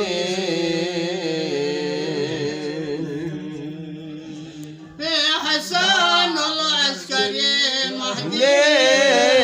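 A man singing a qasida, a Sufi devotional poem, holding long wavering notes that fade toward about four seconds in. Just after five seconds he comes back louder with a quickly ornamented melody.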